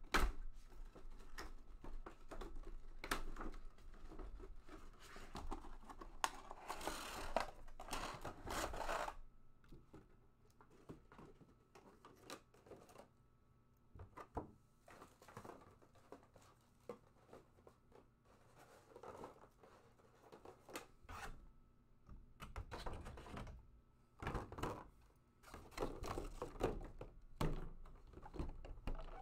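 Stiff clear plastic figure packaging being handled and opened: irregular crinkling, scraping and clicking. It is busiest in the first nine seconds and again near the end.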